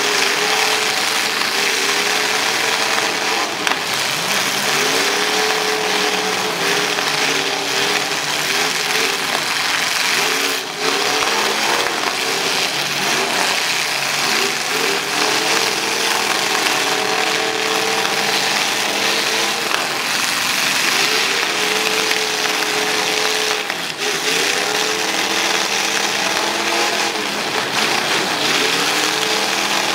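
Several demolition derby car engines revving hard at once, their pitches repeatedly rising and falling over one another.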